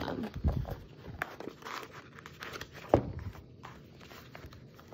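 A paper notebook being worked into a new leather cover by hand: leather and paper rubbing and rustling, with a dull thump about half a second in and a sharper knock about three seconds in.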